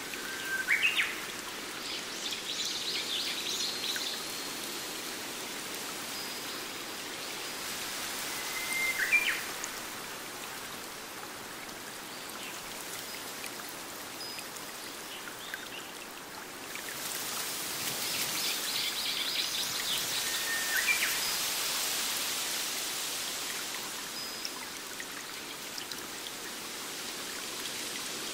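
Small forest stream running over a little cascade, a steady rushing, with birds calling now and then: three sharp chirps, about a second in, around nine seconds and just past twenty seconds, and short high twittering near the start and again past the middle.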